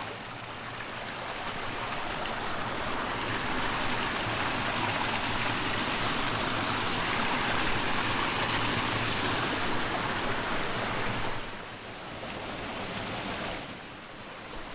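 River water flowing, a steady rushing noise that builds over the first few seconds and drops off twice near the end.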